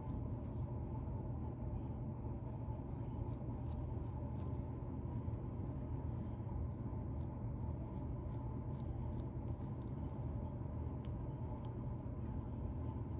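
Fingernails scratching through a beard to loosen dandruff: many short, crisp scratches at an irregular pace, over a steady low hum.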